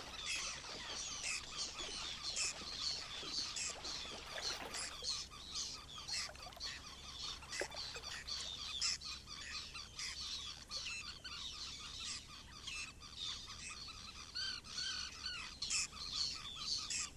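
Many wild marsh birds calling at once: a steady chorus of short, high chirps and squawks overlapping throughout, a little thinner after about five seconds.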